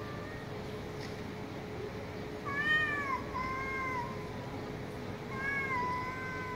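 Street cats meowing: two long, drawn-out meows, one near the middle and one near the end, each about a second and a half and held level after a bend at the start, from two cats squared off face to face.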